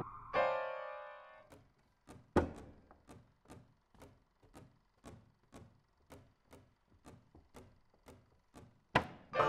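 Live contemporary music for piano, harmonica and electronics: a held reedy chord fades over about a second, then soft, evenly spaced clicks tick about twice a second, like a stuttering clock, until a loud dense passage breaks in near the end.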